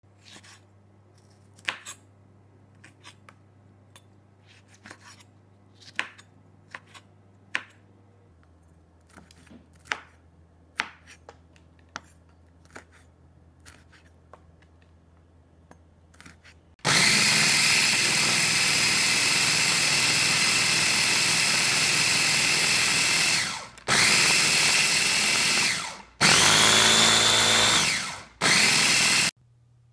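A knife chopping red chilies on a wooden cutting board, with sparse, irregular knocks. About halfway through, an electric mini food chopper starts and runs loudly and steadily for several seconds, then in three shorter pulses, grinding the chilies to a paste.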